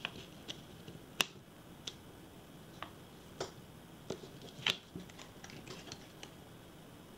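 Scattered light clicks and taps from fingers and nails handling paper stickers and a planner page, about a dozen, irregularly spaced. The sharpest click comes about a second in.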